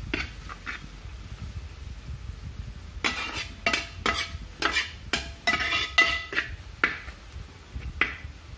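A metal spoon stirring onions being sautéed in a pan, scraping and clinking against the pan. A few light clicks come at the start, then from about three seconds in a quick run of scrapes and knocks, roughly three a second, some of them ringing briefly.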